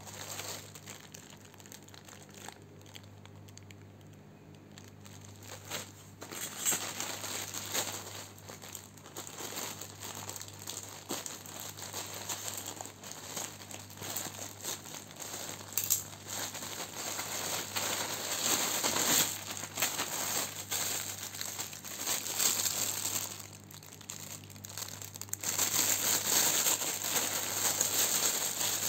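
Plastic courier mailer bag crinkling as it is handled and cut open with scissors, then a clear plastic garment bag rustling as the shirt inside is pulled out. The crinkling is faint for the first few seconds and gets louder from about six seconds in.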